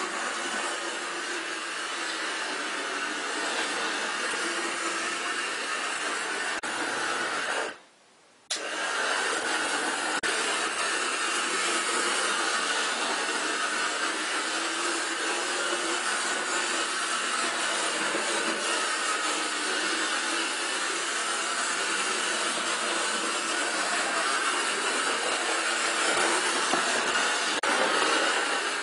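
Model railway locomotive running around the track with a steady hiss. The sound cuts out for under a second about eight seconds in, then resumes.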